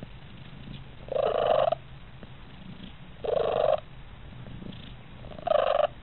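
Siamese cat purring steadily, breaking into three short calls of steady pitch about two seconds apart.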